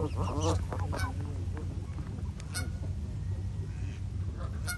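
Canada geese honking: a quick cluster of calls at the start, then a few short single honks spaced out through the rest.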